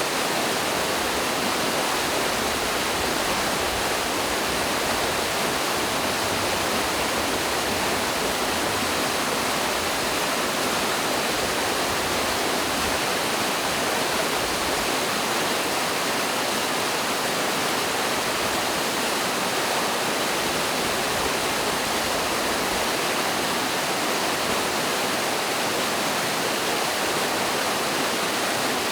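Mountain stream and small waterfall rushing over rocks: a steady, even rush of water with no breaks.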